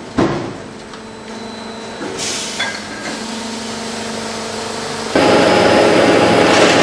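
Servo fire-brick press working: a sharp knock just after the start, a hiss of air about two seconds in, then a steady machine hum with a few held tones. About five seconds in a much louder, dense machinery noise starts suddenly.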